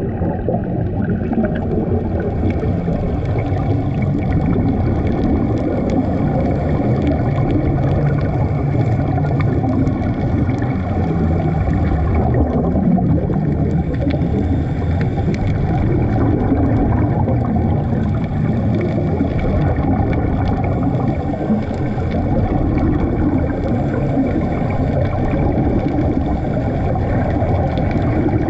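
Muffled underwater noise through a camera's waterproof housing on a scuba dive: a steady low rumble of water, swelling now and then with the gurgle of divers' exhaled regulator bubbles.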